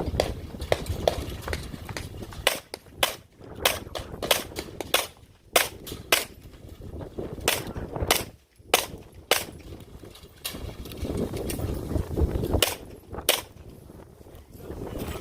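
A string of service-pistol shots in an IDPA stage: more than a dozen sharp cracks, mostly in quick pairs about half a second apart, with short pauses between groups as the shooter moves between targets.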